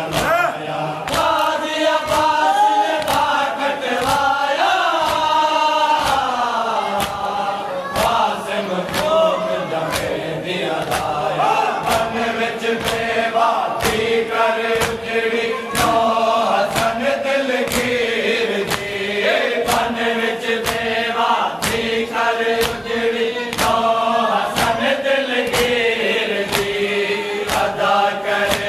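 Men's voices chanting a Muharram noha together, kept to a steady beat of hands striking chests in unison (matam), about three strokes every two seconds.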